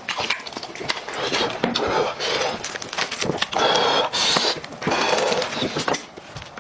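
Close-miked eating sounds: mouth chewing and smacking, and a cooked goat head's meat and bone being torn apart by hand, in irregular clicks and crackles.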